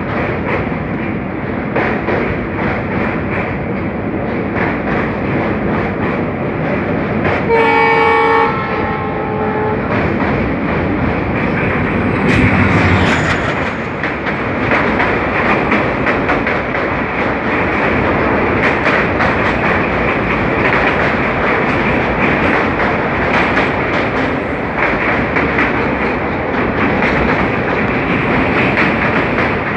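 Passenger train running over a river bridge, heard from aboard: a steady wheel-on-rail rumble with rapid clickety-clack from the rail joints. About eight seconds in a train horn sounds two notes, the second lower and fainter. From about twelve seconds a train on the next track rushes past close by.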